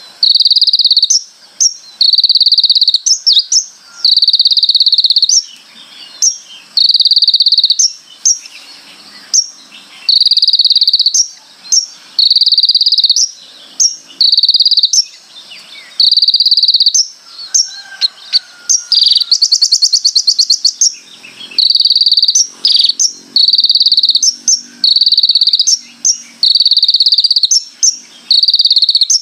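Olive-backed sunbird (kolibri ninja) singing hard, repeating loud buzzy phrases about a second long with brief sharp chips between them. About twenty seconds in there is one rapid, rattling trill instead.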